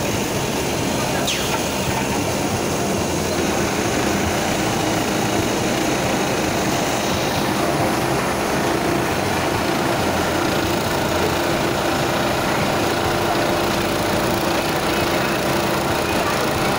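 Automatic mattress tape edge sewing machine running steadily as its sewing head stitches the tape along the mattress border.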